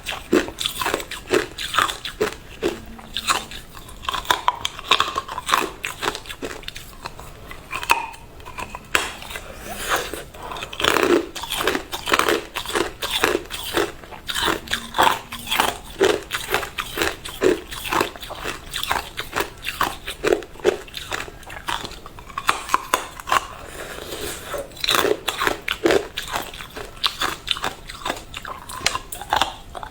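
Hard, clear ice being bitten and chewed close to the microphone: rapid, irregular crunching and cracking as the ice breaks between the teeth.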